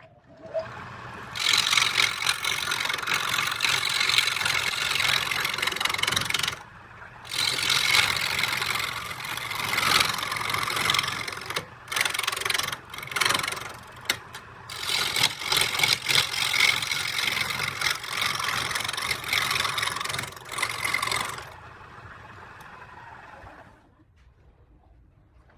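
A power tool working wood in long bursts with short breaks, over a steady motor hum.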